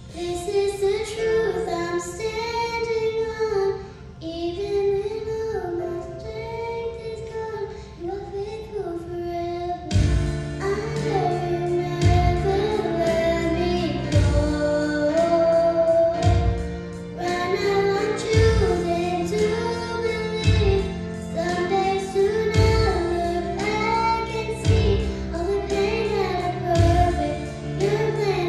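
A young girl singing a contemporary Christian song into a microphone over instrumental accompaniment. About ten seconds in, a low drum and bass beat comes in under her voice.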